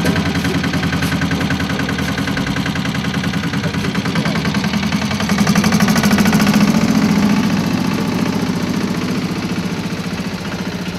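Farm tractor engine running steadily as it tows a trailer, with a fast, even beat; it gets a little louder about halfway through.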